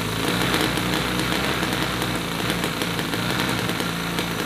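CISON FG-VT9 9cc V-twin four-stroke air-cooled model gasoline engine running steadily at idle.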